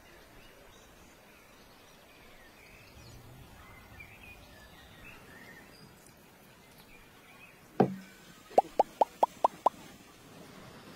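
Faint birdsong in the background, then one sharp knock about eight seconds in, followed by a quick run of six sharp, slightly ringing knocks at about five a second: hard kitchen utensils striking a dish or board.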